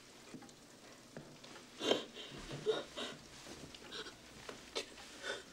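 A woman weeping quietly: a few soft sobs and sniffs.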